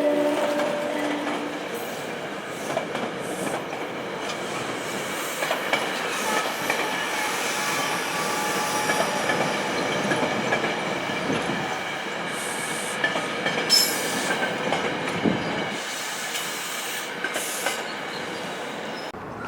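SEPTA commuter train passing, its wheels clacking over rail joints and squealing in a thin high tone. The tail of the train's horn fades out in the first second or two.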